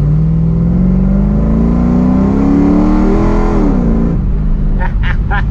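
Cammed 5.9-litre Magnum V8 in a Dodge Dakota R/T pickup accelerating hard, heard from inside the cab: the engine note climbs steadily for about three and a half seconds, then drops as the revs fall, and runs on lower. The engine has a high-lift Comp Cams camshaft and a freshly loaded tune.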